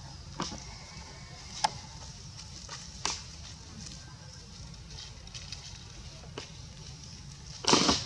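Scattered crackles and rustles of dry leaf litter, with one louder rustle near the end.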